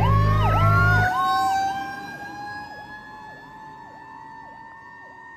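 Fire truck responding: an air horn blasts over an electronic siren's fast, repeating sweep, then stops about a second in. Meanwhile a second siren tone winds slowly upward in pitch, and the whole sound fades steadily.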